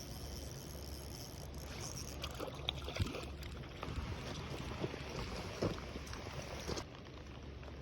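Water splashing and lapping with scattered clicks, over a steady low rumble of wind on the microphone; the splashing stops abruptly near the end.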